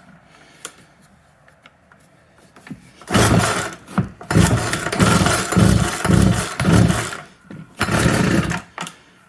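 Old Craftsman two-stroke chainsaw engine catching about three seconds in and running roughly in uneven pulses, about two a second. It dies out briefly near seven seconds, then fires again: a hard-starting saw that won't settle into a steady run.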